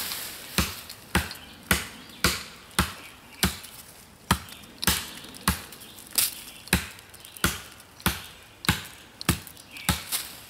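United Cutlery Black Ronin tomahawk, a 420 stainless steel head, chopping into the base of a sapling: about sixteen sharp blows in a steady rhythm of a little under two a second.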